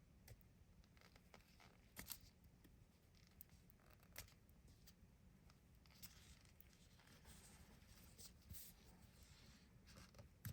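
Near silence with faint, scattered scratches and clicks of a nail tool prying at the edge of a glued-on false nail tip.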